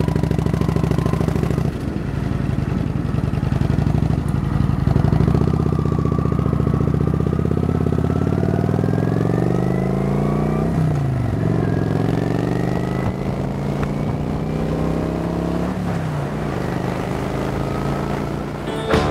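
Kawasaki Vulcan 900's V-twin engine running under way as the motorcycle rides. The pitch climbs as it accelerates, then drops sharply twice, about 11 and 16 seconds in, as it shifts up a gear, and climbs again each time.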